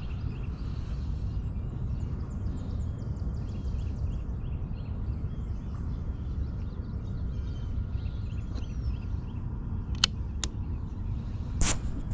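Outdoor ambience: a steady low rumble with birds chirping faintly, then two sharp clicks about ten seconds in and a louder short knock near the end.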